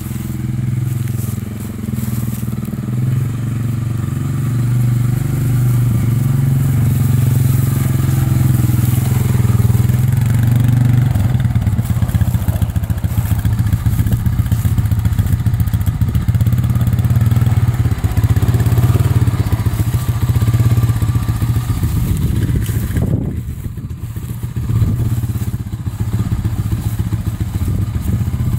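ATV (quad) engine running as the quad is ridden over gravel, its note getting busier about a third of the way in and dropping briefly about three quarters of the way through.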